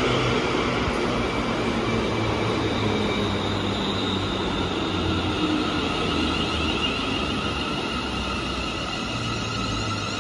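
ScotRail electric multiple-unit train moving along the platform: a steady run of wheels on rail with the whine of its electric traction motors, slowly getting quieter.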